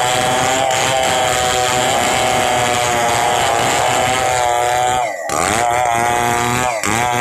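Stihl 070 two-stroke chainsaw running hard at high revs. About five seconds in the engine speed briefly drops and climbs back, and it does so again shortly before the end.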